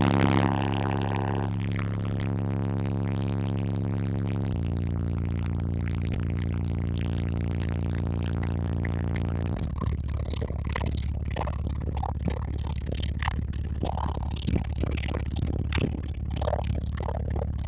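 Very deep bass from a rebassed rap track played loud through two 18-inch Soundqubed HDX3 subwoofers: two long held bass notes, the second one lower and starting about four and a half seconds in. From about ten seconds the notes give way to a steady rattling and buzzing over the bass.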